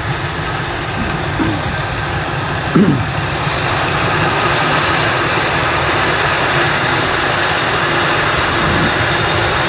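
Kubota DC-105X rice combine harvester running as it cuts ripe rice: a steady diesel engine and threshing noise that grows louder over the first few seconds as the machine comes closer, then holds steady.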